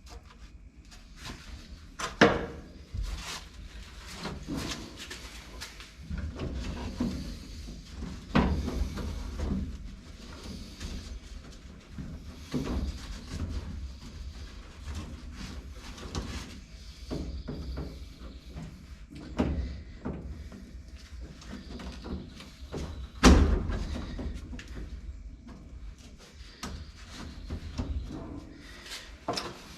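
Irregular metal clunks, knocks and scraping from a window frame and regulator being worked inside a 1955 Chevy 210's door, the parts binding as they move. Two sharp knocks stand out, one about two seconds in and one about three-quarters of the way through.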